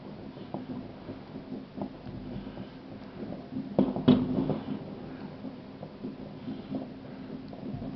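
Fireworks exploding in the distance: scattered bangs and crackles, with two louder bangs close together about four seconds in.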